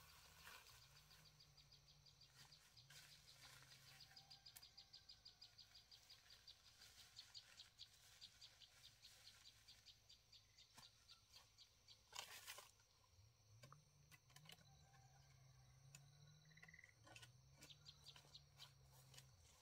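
Faint countryside ambience: a rapid, even run of high chirps, about five a second, through the first half, with a faint low hum coming and going and a short rustle about 12 seconds in.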